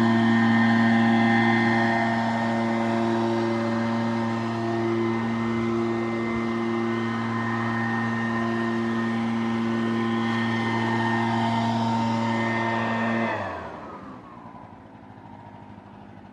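A steady, pitch-constant machine drone, like an engine or motor running at fixed speed. About thirteen seconds in it winds down in pitch and stops, leaving a much quieter background.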